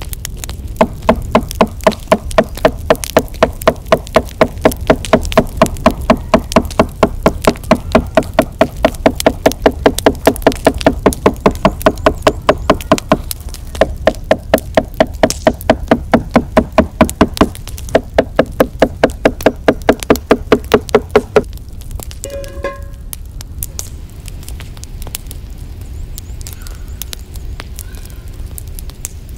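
Knife chopping soft fire-roasted eggplant on a wooden cutting board: quick, even knocks of the blade on the board at about four a second, with two short pauses, stopping about three quarters of the way through.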